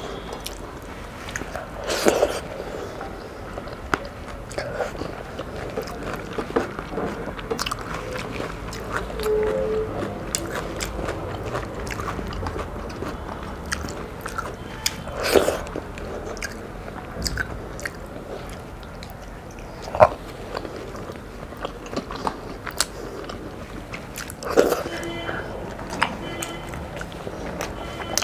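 Close-up eating by hand: chewing and wet mouth smacks of rice with dal and boiled egg, mixed with fingers gathering food on the plate and a few louder clicks and smacks. Finger-licking near the end.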